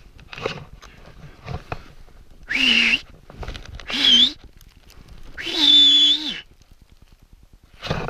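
A man shouting three short, loud wordless calls for help, about a second and a half apart, after a few faint knocks early on.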